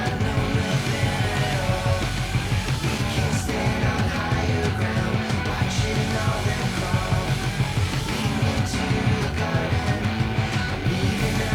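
Background rock music with distorted guitars, a driving beat and singing.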